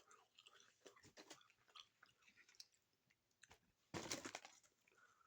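Close-up chewing of a crunchy Doritos Locos taco shell, with faint crackling mouth sounds and one louder crunch about four seconds in.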